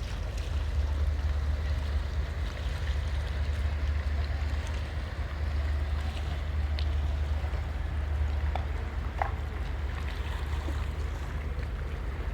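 Steady low engine rumble of a boat or ship, with a wash of water and wind noise over it and a few faint clicks.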